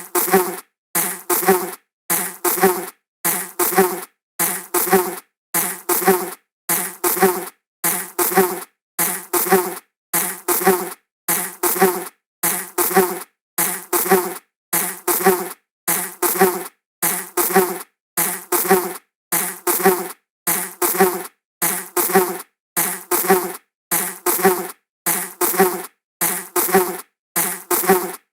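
Buzzing insect flying past, a short buzz that fades away within a second, repeated over and over as a loop with a brief silence between, a little under one a second.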